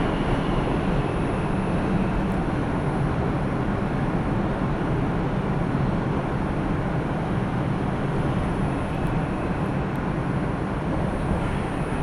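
New York City subway train heard from inside the car: a steady rumble and hum of the train running, with no change in level.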